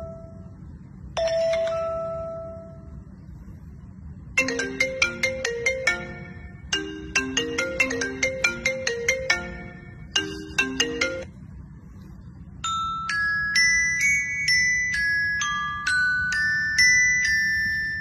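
Smartphone ringtone previews playing one after another: a single chime, then several short marimba- and bell-like jingles, each a different tune, with brief gaps between them.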